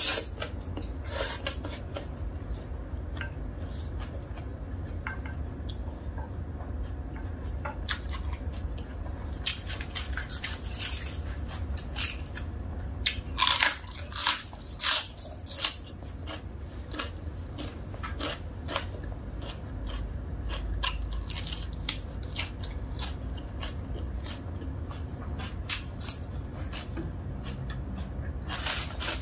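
Close-up eating sounds: a mouthful of dry instant noodles slurped in, then steady chewing with many small wet clicks, and a run of louder crunchy bites around the middle. A low hum lies underneath.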